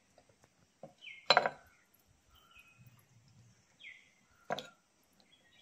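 Steel ladle clinking twice against the dishes as runny dal is ladled from a steel pot into a small clay bowl: two sharp clinks about three seconds apart.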